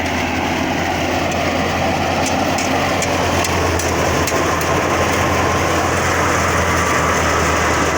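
Tractor-powered wheat thresher running steadily: a constant low engine hum under the machine's dense, even mechanical noise as it threshes wheat.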